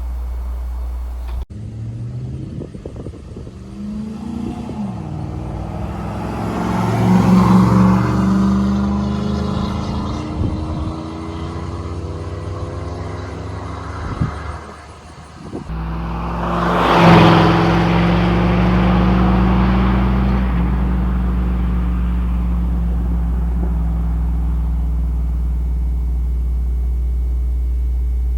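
5.3L LM7 V8 exhaust through a single-chamber performance muffler: the truck accelerates with the engine pitch rising then falling back off. After a cut, it revs up once more and settles into a steady low cruising drone.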